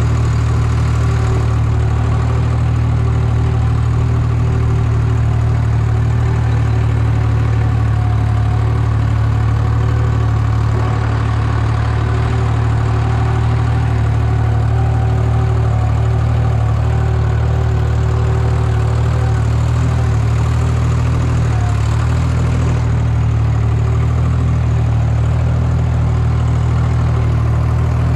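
A tractor engine idling steadily.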